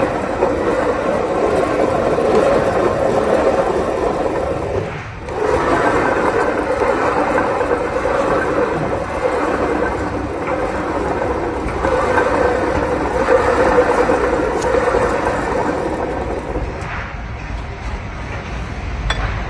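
Machinery running steadily with a continuous rumbling, scraping noise, which dips briefly about five seconds in.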